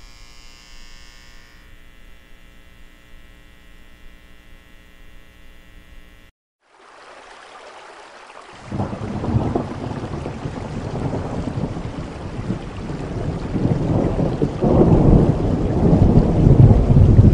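A steady humming tone of fixed pitch for about six seconds, then, after a brief silence, steady rain fades in with rolling thunder that swells about nine seconds in and again, louder, near the end.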